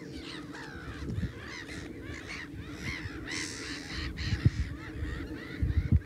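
Many wetland waterbirds calling at once across a marsh lagoon, in short overlapping harsh calls, over a low wind rumble on the microphone.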